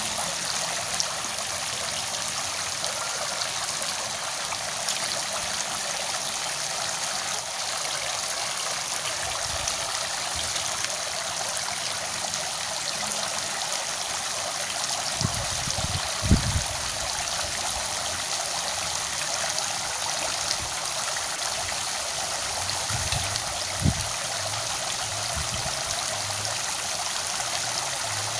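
Steady rush of flowing water, with a few short, low thumps about halfway through and again near the end.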